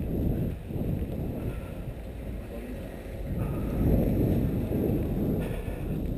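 Low wind rumble on the microphone of a camera carried by someone walking on a snowy pavement, with footsteps on packed snow. It grows somewhat louder about halfway through.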